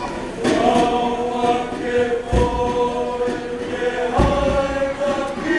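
A group of boys' voices singing a Tokelauan song together in long held notes, with a deep thud twice, about two seconds apart.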